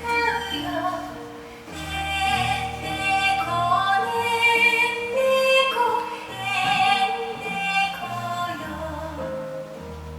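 Recorded music with a woman's singing voice carrying a slow melody of long held notes over sustained low accompaniment notes.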